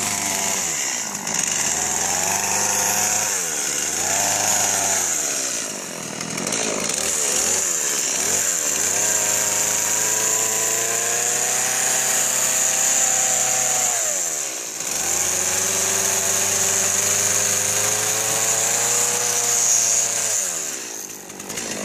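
Two-stroke chainsaw cutting into a giant pumpkin. It revs up in a few short bursts, then runs at full throttle through two long cuts of about five seconds each, dropping back toward idle between and after them.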